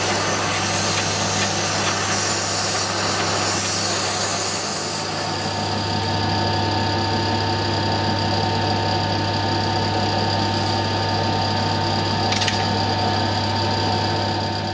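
A gas torch flame hisses against a flywheel rotor spinning in a lathe for about the first six seconds, heating it, then cuts out. The lathe's steady running hum carries on.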